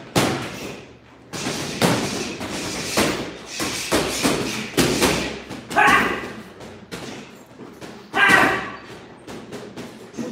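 Irregular heavy thuds and slaps of boxing gloves landing on pads or a bag during a warm-up, ringing in a big room, with brief voices about six and eight seconds in.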